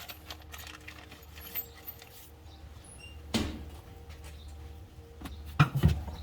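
Small metal hardware and a steering wheel being handled on a work surface: light clinks of bolts and an Allen wrench, a clatter about three seconds in and a couple of louder knocks near the end, over a low steady hum.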